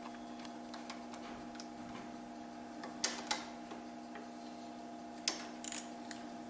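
A 9/16 wrench working on the bolts in the end of an air-compressor crankshaft: faint light ticking, with two sharper metal clicks about three seconds in and another click and a short clatter past the five-second mark, over a steady hum.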